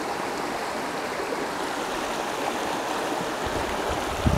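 Creek water running over rocks, a steady rush. Low thumps come in during the last second.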